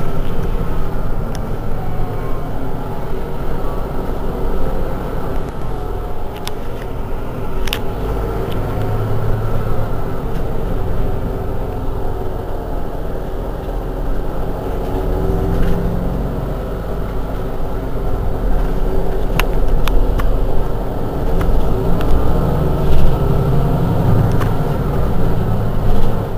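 Mercedes-Benz Citaro G articulated bus's diesel engine idling at standstill: a steady low running sound that swells a little now and then, with a few short sharp clicks.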